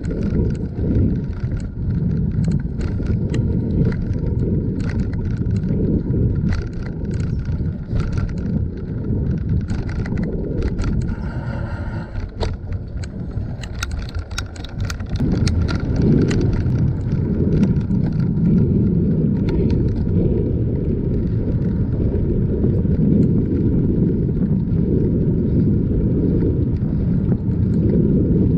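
Riding noise from a bicycle-mounted camera: a steady low rumble of wind and tyres on pavement, with frequent clicks and rattles over bumps in the first half.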